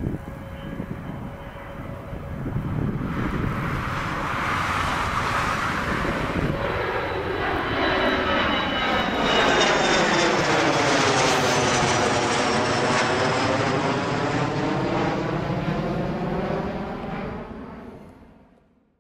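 Twin-engine regional jet with rear-mounted turbofans flying low overhead on departure. The jet noise builds over a few seconds, with a high fan whine on top that falls slowly in pitch, is loudest as the aircraft passes overhead, then fades out near the end.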